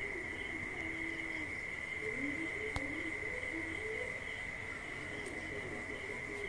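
Steady, unbroken high-pitched trill of crickets, with a single sharp click a little under three seconds in.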